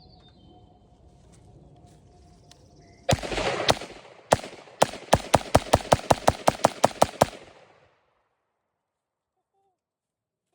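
A string of about fifteen rifle shots from a 16-inch semi-automatic rifle. The first few come about half a second apart, then a fast run at roughly five shots a second, after which the sound cuts off abruptly.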